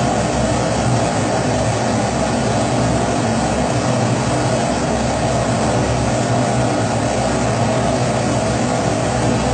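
Kerosene pressure stove (Primus-type babour) burner running, a steady, unchanging rushing noise of the burning flame.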